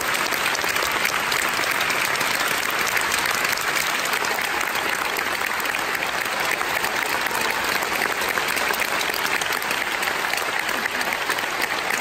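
Large audience applauding in a concert hall: many hands clapping in a dense, steady patter.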